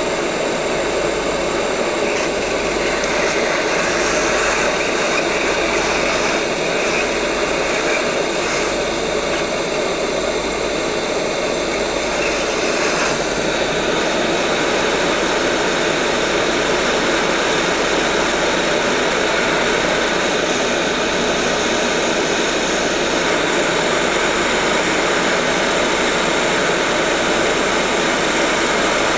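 Hot air rework station blowing a steady rushing hiss while reflowing a MOSFET back onto a laptop motherboard.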